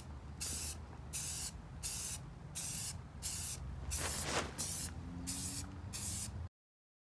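Aerosol spray can of primer hissing in short bursts, about two a second, as the coat goes onto a metal drift trike frame. The sound cuts off abruptly near the end.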